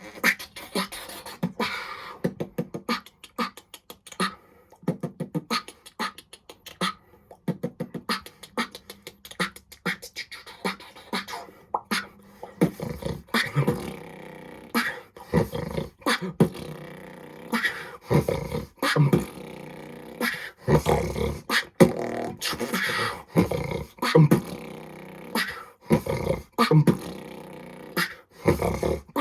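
Solo beatboxing: rapid mouth-made percussive hits and clicks in a driving rhythm, with longer pitched bass and voice-like sounds joining from about halfway.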